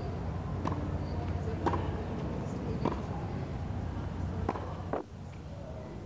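Tennis ball struck by rackets in a baseline rally on a hard court: a series of sharp pops roughly a second apart over steady background noise.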